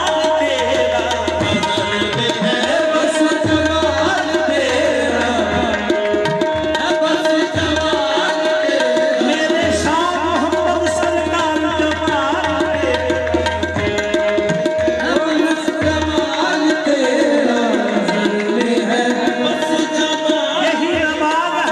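Qawwali music: tabla playing a steady rhythm under harmonium, with one note held throughout and a melody sliding up and down over it.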